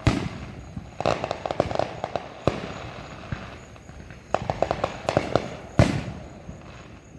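Fireworks going off: sharp single bangs right at the start, about two and a half seconds in and a louder one near the end, with rapid strings of crackling pops in between.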